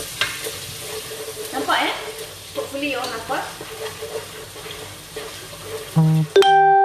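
Pounded dried anchovies and garlic sizzling as they fry in hot oil, with occasional stirring. About six seconds in, the frying sound cuts off abruptly and a loud, sustained musical note rings out.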